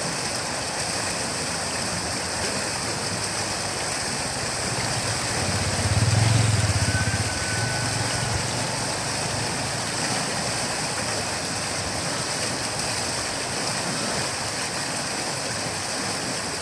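River water flowing in a steady rushing wash. A low engine hum swells about six seconds in and fades out by about nine seconds.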